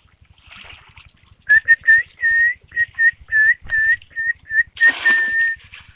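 A person whistling a tune: about a dozen short, clear notes at a steady high pitch, ending on one longer held note. A brief rush of noise comes near the end.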